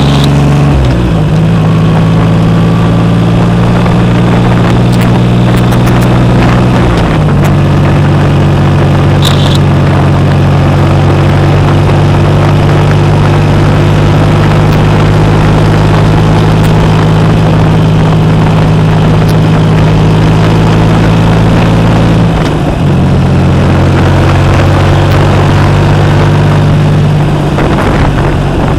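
2012 Triumph Rocket 3 Roadster's 2.3-litre inline-three engine running loud through an aftermarket Jardine exhaust, holding a steady low drone whose pitch shifts a few times.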